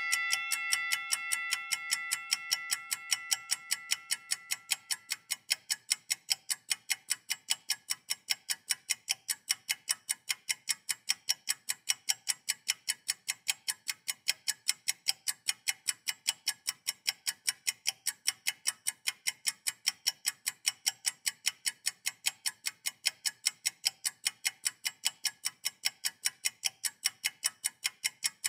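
Steady, even ticking, several sharp ticks a second, like a clock, running as the sound score of a dance piece. Over the first few seconds a bell-like chime, struck just before, rings and fades away.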